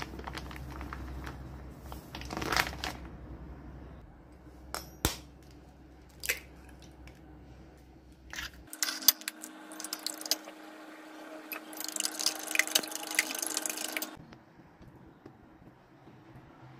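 Kitchen prep sounds: a few sharp knocks of dishes and utensils on a stone countertop, then an egg cracked against a ceramic bowl and beaten, a utensil clicking rapidly against the bowl, busiest for a couple of seconds before stopping.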